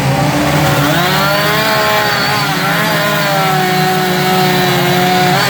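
Chainsaws running during carving: a steady lower drone with one saw's engine pitch rising and falling as it is throttled up and down.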